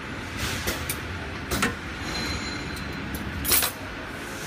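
Rotary pouch packing machine's steady mechanical hum, broken by several short, sharp clacks and hisses from its bag-clamp mechanism. The loudest come about one and a half and three and a half seconds in.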